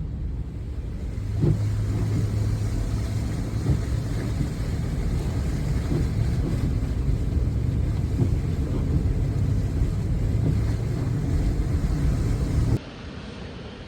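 A vehicle engine runs steadily while driving through deep floodwater, with water churning and washing around it. The sound cuts off suddenly near the end, leaving a much quieter background.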